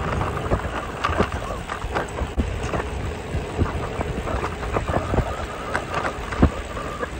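Wind buffeting the microphone and low road rumble from a loaded touring trike rolling downhill, with irregular knocks and rattles several times a second.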